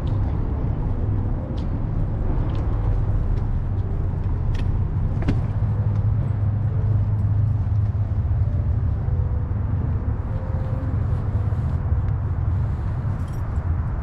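Riding noise from a camera on the handlebars of an Apollo Explore electric scooter moving through city streets: a steady low rumble of road and wind with traffic around, broken by a few sharp clicks and rattles.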